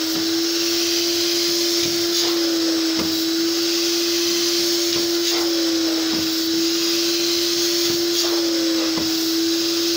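Fabric extraction machine's vacuum motor running with a steady whine and airy hiss, as its upholstery wand sucks shampoo solution back out of a fabric partition panel.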